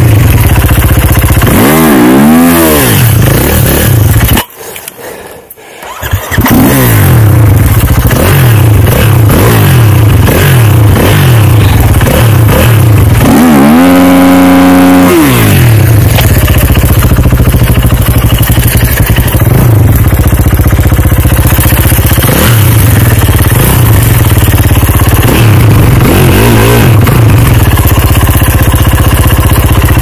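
Snowbike's dirt-bike engine running and revving up and down while the machine is bogged in deep snow. The engine sound dies away about four seconds in and is running again about two seconds later, with a long rev that rises and falls near the middle.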